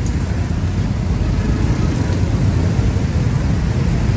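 Street traffic rumbling steadily, a loud low drone with no distinct passes or horn.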